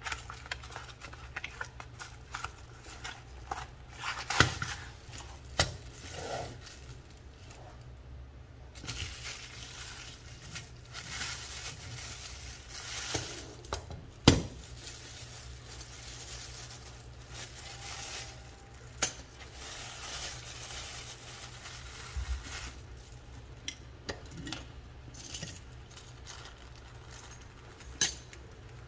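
Unboxing handling noise: cardboard and plastic-bag rustling, broken by sharp knocks and clinks as the metal horseshoe bicycle lock and its keys are handled and set down on a cutting mat. The loudest knock comes about halfway through.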